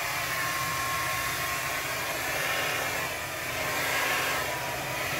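Handheld hair dryer running steadily, a rushing blast of air over a low hum, used to blow poured acrylic paint across a canvas.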